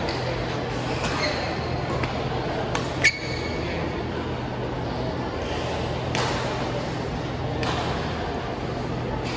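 Badminton rackets striking a shuttlecock in a rally: a few sharp hits about a second apart, the loudest about three seconds in, with a brief ringing ping. A steady low hum runs underneath.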